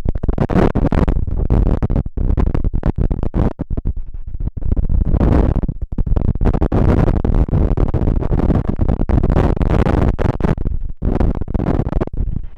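Strong gusting wind blowing across the microphone, loud and rough, with several brief sudden dropouts.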